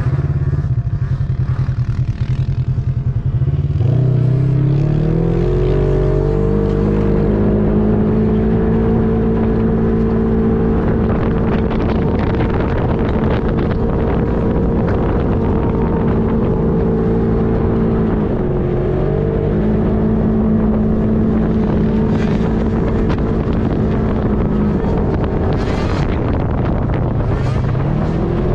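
Polaris RZR XP 4 side-by-side's engine pulling across sand: it climbs in pitch about four seconds in and holds a steady high pitch, eases off briefly a little past halfway, then pulls up again and eases near the end.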